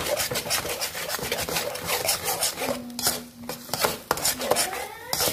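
Metal spatula scraping and stirring thick sauce around a metal wok: a fast, uneven run of rasping scrapes against the pan.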